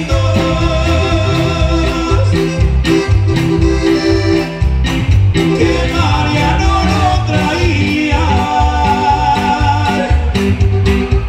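Live band playing loud amplified Latin dance music through a PA, with electric guitar, keyboard, saxophone and congas over a steady beat.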